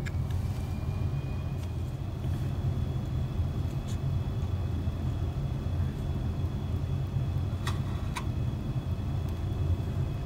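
Steady low mechanical hum with a faint high whine above it, and two light clicks close together about two seconds before the end.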